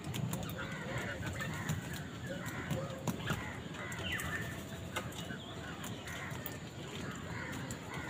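A flock of house crows cawing, short calls following one another every half second or so, with scattered light clicks.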